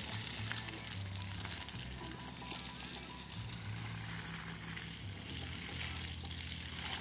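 Water spraying from an irrigation hose onto the soil and plants, a steady hiss, with background music carrying a low bass line underneath.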